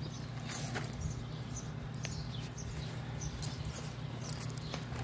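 Outdoor background: a steady low hum with faint, scattered small-bird chirps and a few light clicks.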